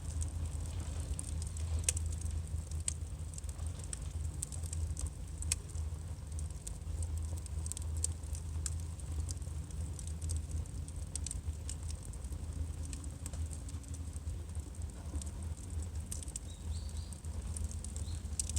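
Burning firewood crackling, with irregular sharp pops and snaps over a steady low rumble.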